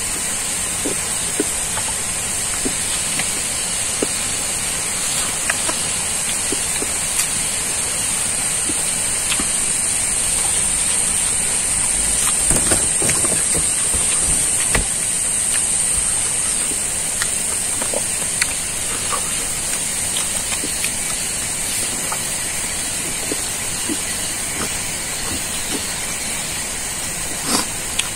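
Eating by hand: soft chewing and lip-smacking clicks as rice is scooped off a banana leaf, over a steady high-pitched hiss that is a little stronger in the middle.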